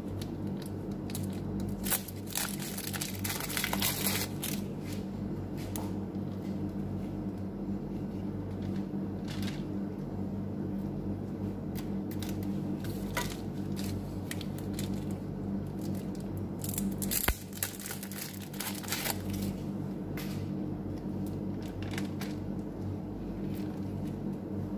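Baking parchment crinkling, with small snaps and clicks as pieces of chocolate are broken off and pressed onto balls of cookie dough on a lined tray, over a steady low hum. One sharp click stands out about two-thirds of the way through.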